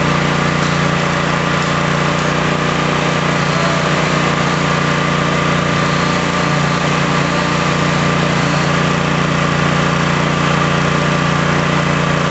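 Vehicle engine running at a steady, unchanging pitch while it pulls on a taut rope tied to the tree.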